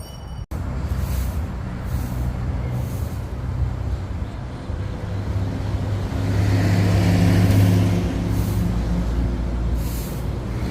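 A vehicle engine running with a steady low hum that swells louder about six seconds in and eases off after about eight.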